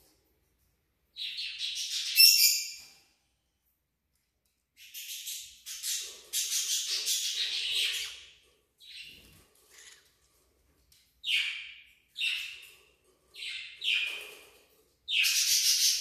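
Cockatiels calling in a string of short chirps and scratchy, raspy calls with silent gaps between them: a longer stretch in the middle, four quick calls near the end, then another longer scratchy call.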